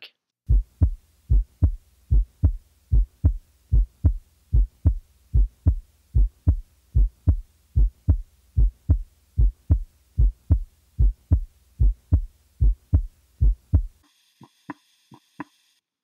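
Normal heart sounds: a steady lub-dub, each beat a pair of low thuds (the first and second heart sounds), at about 75 beats a minute. The beating stops at about 14 s, and a few faint ticks with a light hiss follow.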